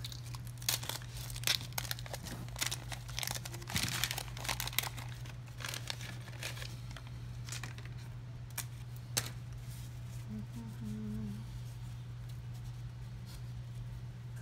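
Waxed-paper wrapper of a 1986 Topps card pack crinkling and tearing as it is handled, with a run of sharp crackles over the first five seconds and fainter rustling after. A steady low hum runs underneath.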